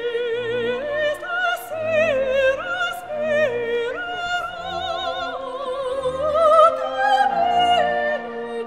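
Operatic singing with orchestral accompaniment: a voice singing sustained notes with wide vibrato over held instrumental chords.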